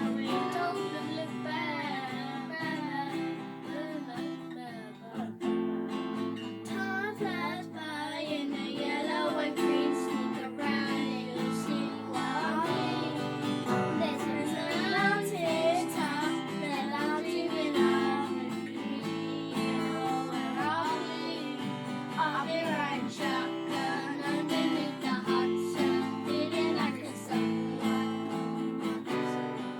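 Children singing a pop song over strummed acoustic guitar.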